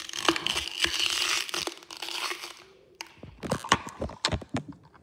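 Something crunchy being crushed in the hands: a dense crackling crunch for about the first two and a half seconds, then a few separate sharp clicks and knocks.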